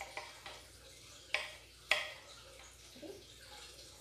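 Chef's knife knocking on a wooden cutting board while dicing onion: a few irregular taps, the two loudest about a second and a half and two seconds in.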